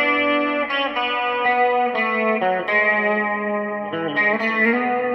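Electric guitar played through a Marshall Code modelling amp sitting directly on the floor, using the amp's built-in effects: sustained chords that change about once a second.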